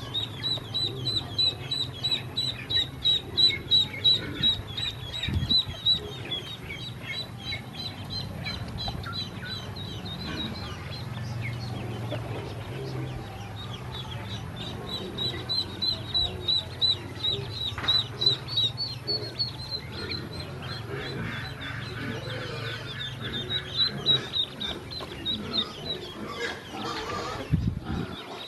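A bunch of ducklings peeping, a run of short, high, repeated peeps, several a second, louder near the start and again near the end.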